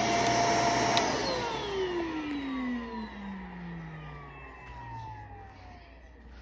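Shark Lift-Away upright vacuum cleaner running, then switched off with a click about a second in; its motor winds down with a falling whine that fades over the following seconds.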